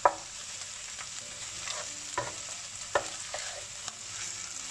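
Ginger-garlic paste sizzling in olive oil in a non-stick frying pan while a slotted spatula stirs it, being lightly browned to cook off its rawness. The spatula knocks sharply against the pan a few times, loudest at the very start.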